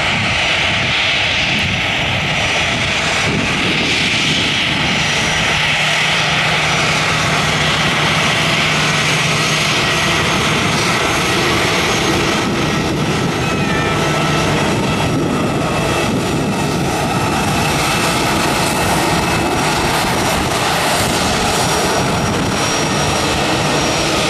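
Twin jet engines of an Airbus A320-family airliner running at taxi power as it rolls slowly past, a steady loud noise with a high whine that is strongest in the first half.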